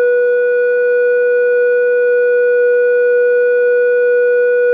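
Electric Specialties Company telephone central-office tone generator sounding the old 'no such number' (vacant number) tone: one steady, unbroken tone, strongest around 500 Hz, with fainter higher tones above it. It was the signal a caller heard for a number that did not exist, before recorded announcements.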